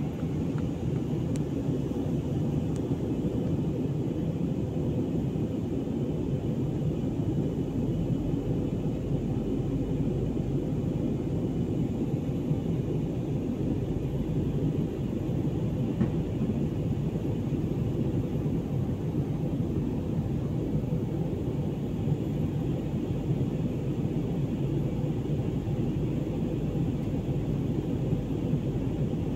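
Jet airliner cabin noise in flight: the steady, even low rumble of engines and airflow heard from a window seat.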